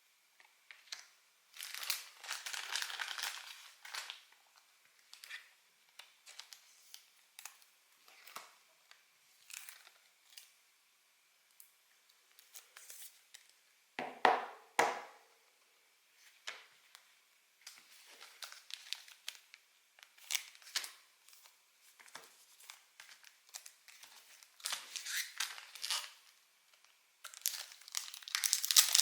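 Pokémon collection-box packaging being handled and opened: scattered crinkling and tearing, with a louder rustle about halfway through and steady dense crinkling near the end.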